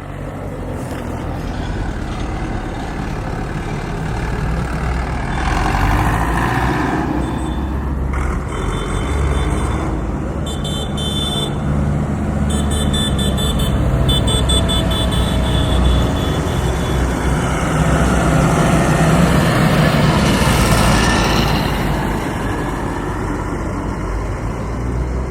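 Heavy road traffic rumbling steadily, with car horns honking repeatedly in short and long blasts through the middle, and a louder swell of traffic noise later on.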